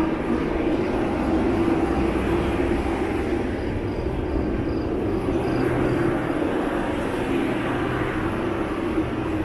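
Steady mechanical drone with a constant low hum and no breaks.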